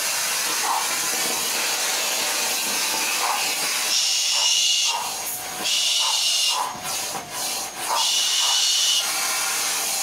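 A galah (rose-breasted cockatoo) hisses in roughly one-second bursts, three times from about four seconds in, over the steady hiss of a running vacuum cleaner. The hissing is the bird's defensive reaction to the vacuum.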